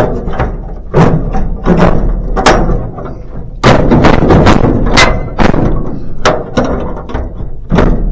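An irregular series of loud thuds and knocks, several a second at times, over a steady low rumble.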